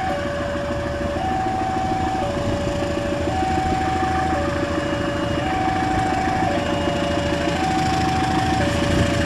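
CC201 diesel-electric locomotive accelerating away with its train, its engine rumble building steadily. Over it, a level-crossing warning alarm sounds, alternating between a higher and a lower tone about once a second.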